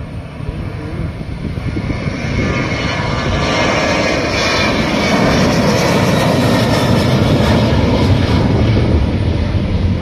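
Airliner engines at takeoff power: a roar that grows louder over the first few seconds and then holds steady.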